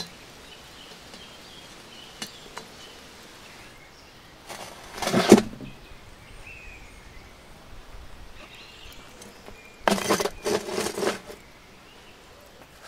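Bricks handled on a bed of charcoal embers and ash, crunching and scraping as they are set down about five seconds in, with another cluster of scrapes and knocks about ten seconds in.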